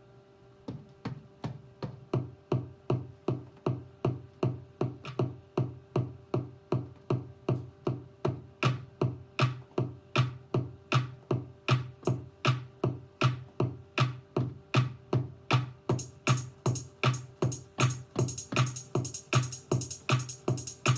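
Electronic drum-machine beat played live on a Maschine Studio groovebox and Korg Kronos synthesizer: a faint held synth tone, then a punchy low hit repeating about two and a half times a second from about a second in. Bright hi-hat-like hits join about three-quarters of the way through and grow busier near the end.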